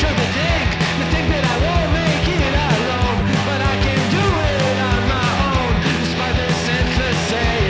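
Background rock music with a fast, steady beat and a sung vocal line.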